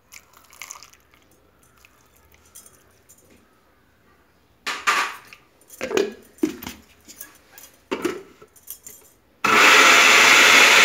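Water poured into a glass blender jar, then a few glassy clatters as the lid is fitted and the jar set on its base. Near the end the Ikon countertop blender's motor runs loud and steady for about a second and a half, grinding onions, turmeric and fennel with water into a paste, then stops abruptly.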